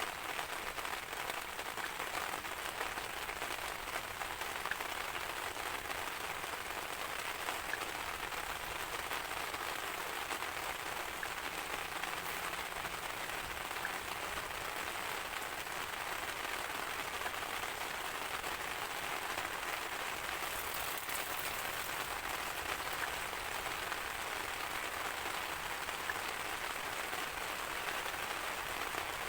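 Steady rain falling in a dense, even patter, with no thunder.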